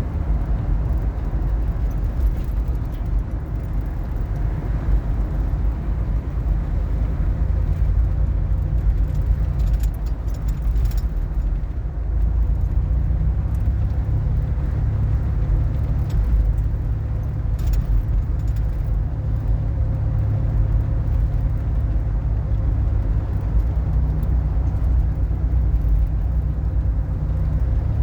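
Car driving on the road, heard from inside: a steady low rumble of road and engine noise, with a few faint clicks.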